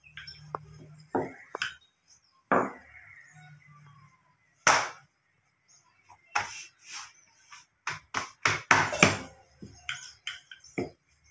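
Wooden rolling pin rolling out a thin sheet of dough on a kitchen counter, with irregular knocks and clacks as the pin strikes the counter, coming thicker in the second half.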